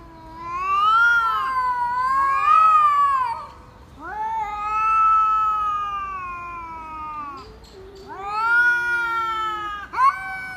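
A cat yowling in several long, drawn-out calls, each rising and then sagging in pitch.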